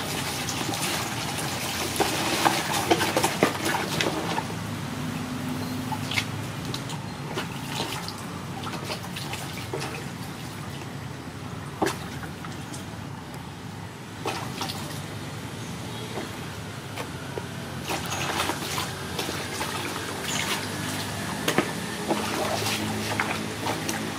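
A tiny kitten eating rice from a plastic bowl: a run of small wet chewing and smacking clicks, busiest about two to four seconds in and again near the end.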